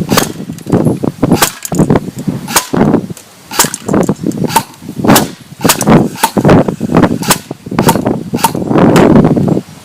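Airsoft M4 rifle firing .20 BBs in single shots, one sharp crack after another at about two shots a second.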